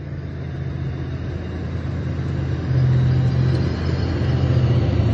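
Tank engine running with a deep, steady drone, growing steadily louder as the tank approaches, with a jump in loudness about two and a half seconds in.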